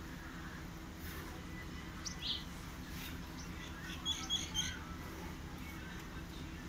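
Small birds chirping: one short call about two seconds in and a quick flurry of chirps around four seconds in, over a steady low hum.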